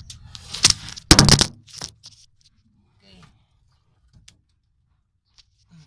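Handling noise behind a car dashboard: two short bursts of rustling and clatter, the louder about a second in, then a few faint clicks.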